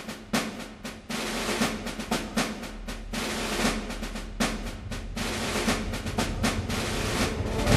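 Drum-led music: a fast, uneven run of snare-drum hits and rolls.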